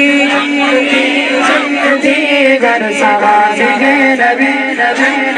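Male voices singing a manqabat, an Urdu devotional song in praise of the Prophet's companions, over a low held note.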